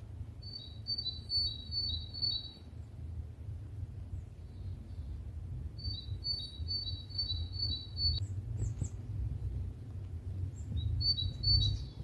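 A songbird singing three bursts of a repeated two-note phrase, a high note then a slightly lower one about five times over, over a steady low rumble.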